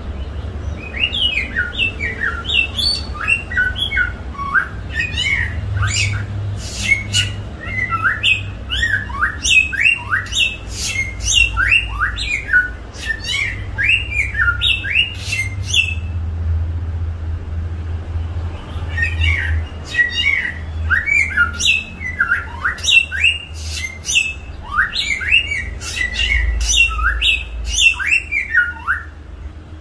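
A songbird singing long, rapid phrases of quick down-slurred whistled notes mixed with sharp clicky notes, pausing briefly about halfway through before starting again. A steady low hum runs underneath.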